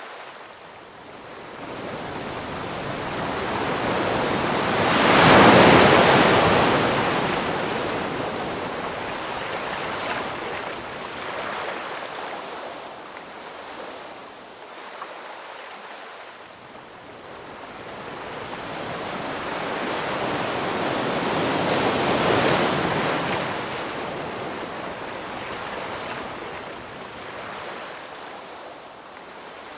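Ocean waves breaking on a shore: a steady wash of surf that swells to two large breakers, about 5 seconds in and about 22 seconds in, each ebbing slowly away afterwards.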